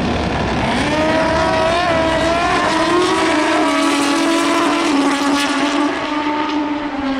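A pair of Top Bike drag racing motorcycles launching and accelerating hard down the drag strip. Their engine note climbs in pitch about a second in and then holds high.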